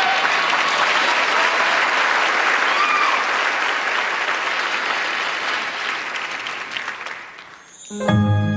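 Large audience applauding and cheering, with a few whistles, fading away near the end; a music track starts in just before the end.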